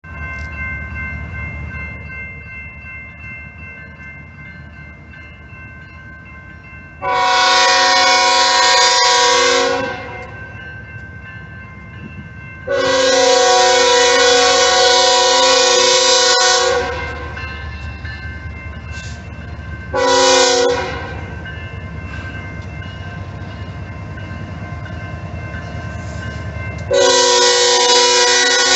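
Air horn of an approaching BNSF freight train's lead locomotive sounding the grade-crossing signal: two long blasts, a short one, then a final long blast that is still sounding at the end. A low steady rumble of the locomotives runs between the blasts.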